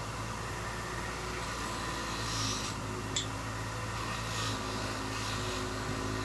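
Small bench grinder running steadily with an engine piston pressed against it, an even motor hum under a scrubbing hiss with a few brief louder scrapes. It only sounds like he is pushing hard: the grinder has little power, so it is barely loaded.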